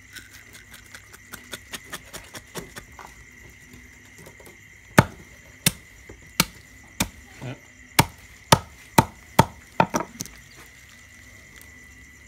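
Knife chopping small fish on a thick round wooden chopping board: light taps at first, then about a dozen sharp chops from about five seconds in, coming faster near the end. A steady high insect chirring runs underneath.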